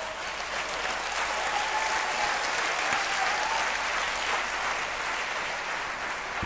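Large audience in an auditorium applauding, building to its loudest a few seconds in and easing slightly toward the end.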